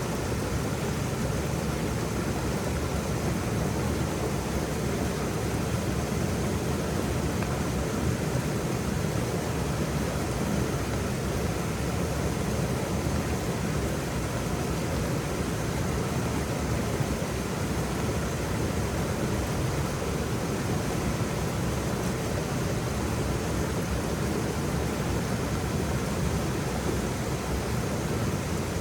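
Waterfall: a steady, unbroken rush of falling water, full and deep.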